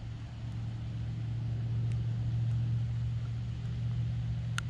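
A low, steady engine hum from a passing motor vehicle, swelling louder around the middle and easing off toward the end, with a sharp click near the end.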